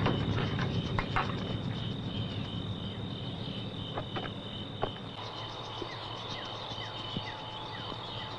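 Crickets chirping in a steady, evenly pulsing high trill, with a few faint clicks and a low rumble that fades out in the first couple of seconds.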